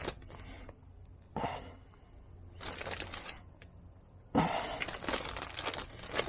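Plastic zip-top bag crinkling in several short bursts as it is handled and filled with pieces of smoked salmon.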